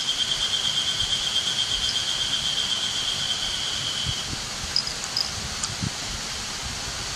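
Outdoor ambience with an insect's high, finely pulsing trill, likely a cricket, that stops about four seconds in; a few faint short chirps follow.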